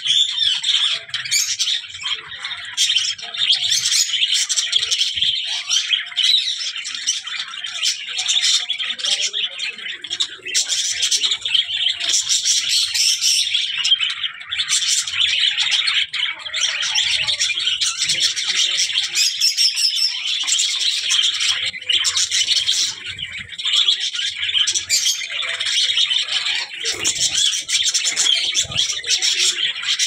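Flock of budgerigars chattering without a break: many overlapping high chirps, warbles and squawks from several birds at once.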